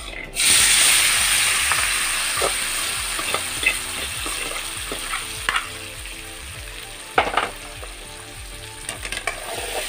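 Spiced green cashew nuts tipped into hot coconut oil in a metal wok. They sizzle loudly as they land, then fry on with the sizzle slowly fading. A few sharp clicks come through, the loudest about seven seconds in.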